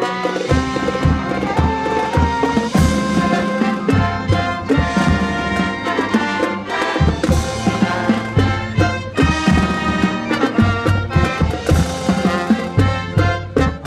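Marching band playing a brass arrangement with drums: sustained horn chords over steady drum beats.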